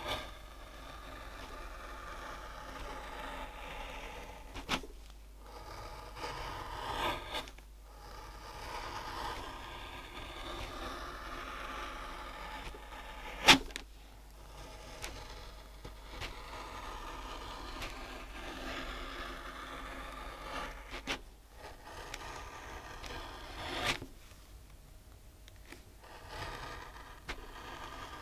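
Linocut gouge carving through a linoleum block: a run of dry scraping strokes, each lasting from a second to several seconds, with short pauses between them. There is a sharp click about halfway through.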